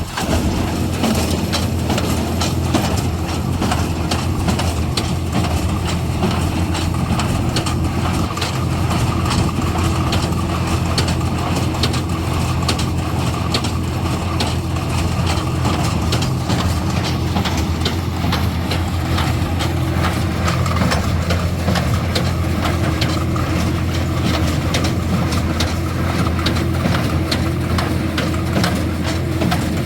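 LS tractor's engine running steadily while pulling a New Holland Hayliner 67 square baler, with the baler's mechanism clattering and knocking throughout.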